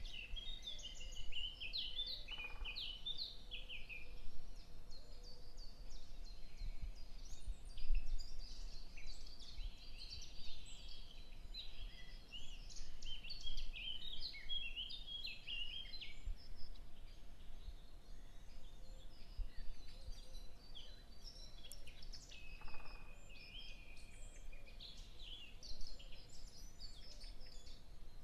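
Many small birds chirping and twittering continuously in quick overlapping calls, over a low steady background rumble.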